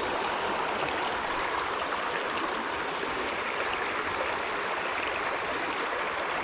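Trout stream water running steadily, an even rushing.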